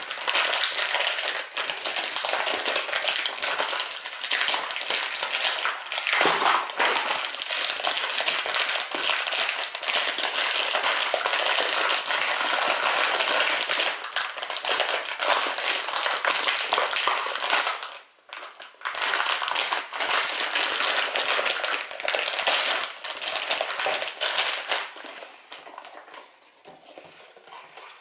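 Clear plastic packaging bag crinkling and crackling as it is handled and pulled open around a speedcube, with a small cardboard box being handled. The crackling is dense and steady, breaks off briefly a little past halfway, and dies down near the end.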